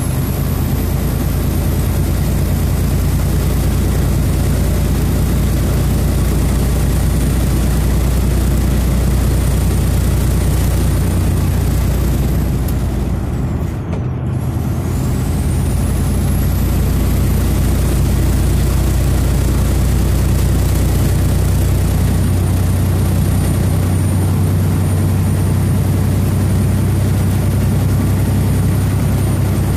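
Steady engine drone and road noise heard from inside a vehicle's cab at highway speed, with a thin high whine above it. About 14 seconds in the sound dips briefly and the whine drops away, then climbs back up and holds steady.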